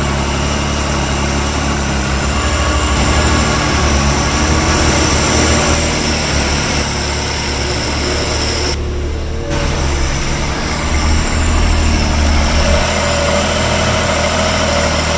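Perodua Kancil's freshly overhauled three-cylinder engine running steadily at idle.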